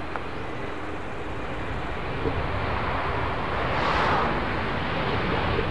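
Jet engines of an Airbus A320 airliner rolling along the runway, a steady rumble and hiss that swells to a peak about four seconds in as the plane passes.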